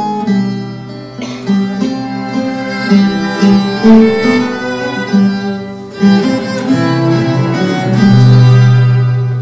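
Cello ensemble playing sustained bowed chords together with a plucked guitar. A long low cello note swells near the end.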